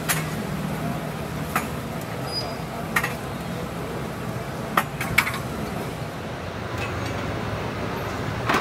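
Cooking utensils clinking against crepe griddles: about six short, sharp clinks scattered over the stretch, the loudest pair about halfway through, over a steady low hum.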